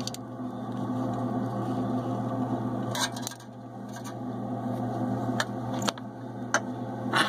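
Soldering work on a circuit board: a steady low hum throughout, with about five or six light clicks and taps in the second half as the soldering iron and wire are handled against the board.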